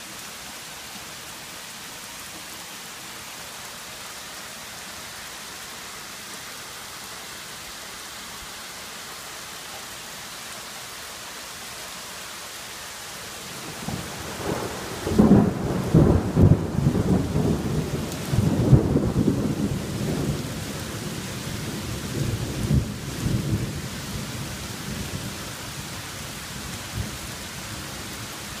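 Steady hiss of heavy rain falling. About halfway through, a long rumble of thunder breaks in with crackling peaks, rolls on for around ten seconds and fades back under the rain.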